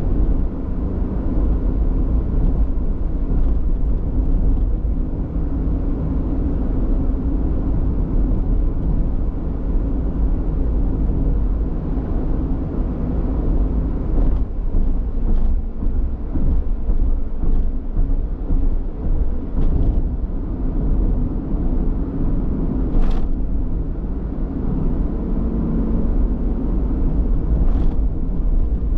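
Car driving steadily: continuous low engine and road rumble, with a couple of brief light ticks.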